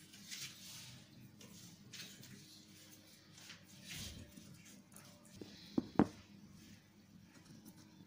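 Soft scratching and small ticks of thin 22-gauge jewellery wire being bent and handled, with two sharper clicks in quick succession a little past the middle.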